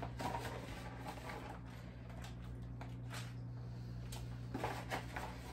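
Plastic bag of shredded cheddar cheese crinkling and rustling as cheese is shaken out by hand onto tortilla chips, with a few sharper crinkles, over a steady low hum.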